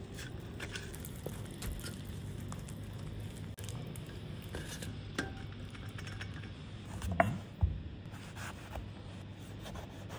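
Quiet kitchen prep: a utensil working spice paste on a banana leaf and a chef's knife cutting an eggplant on a wooden board, heard as scattered light scrapes and taps over a steady low hum, with a few louder knocks about seven seconds in.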